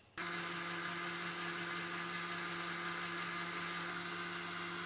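Sujata mixer grinder running, grinding soaked raw rice and coconut with water into dosa batter: a steady motor whir with a low hum, cutting in abruptly just after the start.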